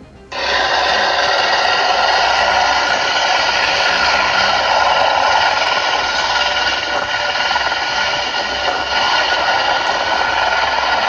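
Loud, steady machine whine with several held tones over a rush of air, like a turbine running. It switches on abruptly just after the start and runs without change.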